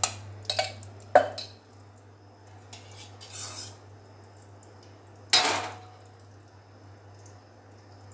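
Steel slotted ladle clinking and scraping against a kadai while stirring cashew powder roasting in ghee: several sharp clinks in the first second or so, then one loud metal clank with a short ring about five seconds in.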